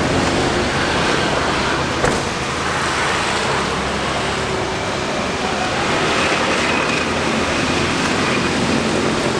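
Steady street traffic noise from passing cars and motorbikes, with a single short knock about two seconds in.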